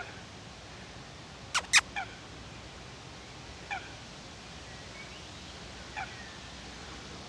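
Eurasian coot calling: short, honking calls falling in pitch, repeated about every two seconds. Two sharp clicks about one and a half seconds in are the loudest sound.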